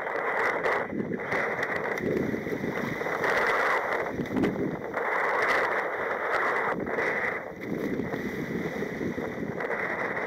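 Small surf breaking and foaming water rushing around a sea kayak as it paddles out through the shore break, in surges that rise and fall every second or two, with wind buffeting the microphone.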